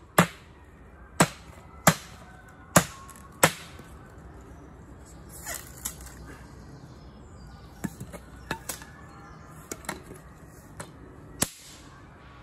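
Ka-Bar BK72 knife blade chopping into a teak chair's wood: five sharp whacks about a second apart, then a stretch of lighter knocks and clicks from handling the wood, and another hard chop near the end.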